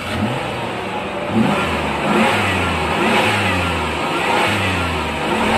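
Car engine revving up and down several times.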